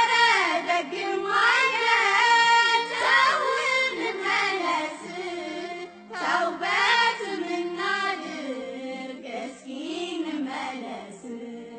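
A voice singing a winding, ornamented Islamic devotional chant over a steady low hum, with a short break about six seconds in.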